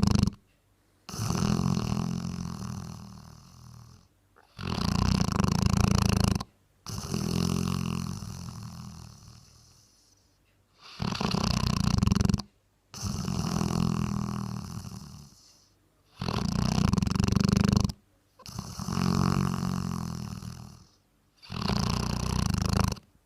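A Bracco Italiano dog snoring in a slow, regular rhythm, about four breaths. Each breath is a loud snore of about a second and a half that stops abruptly, then after a short pause a longer snore that fades away over about three seconds.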